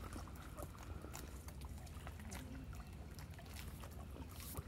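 Faint trickling and light splashing of lake water around an inflatable stand-up paddle board as two people clamber up onto it, over a steady low rumble.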